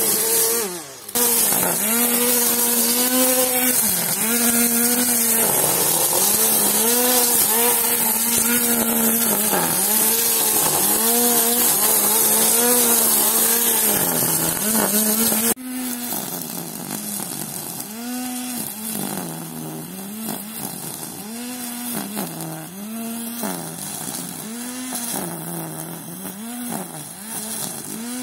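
String trimmer running at full speed and cutting grass; its motor pitch sags again and again as the line bites into the grass, then picks back up. About halfway through it drops abruptly to a quieter, more distant level.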